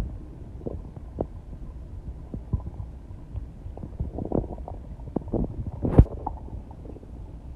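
Stomach growling: irregular gurgles and pops over a low rumble, with one sharp, louder click about six seconds in.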